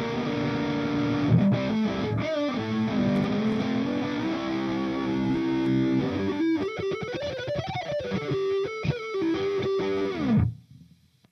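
Electric guitar with a new budget pickup, played through Amplitube 4 amp simulation: held, ringing chords, then from about six seconds a busier run with bent notes that ends on a note sliding down, about ten seconds in.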